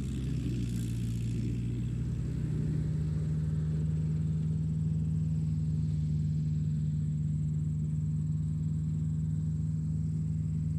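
A steady machine hum that settles into a stronger, even tone about two and a half seconds in.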